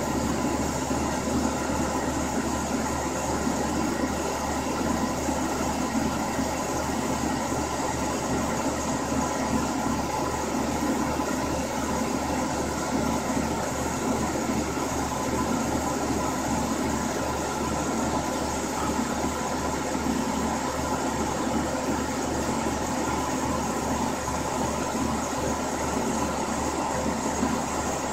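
Grizzly G0678 milling machine converted to CNC, running steadily: the spindle motor, belt drive and spindle turning as the cutter profiles the edge of an aluminum block. The servos are not heard.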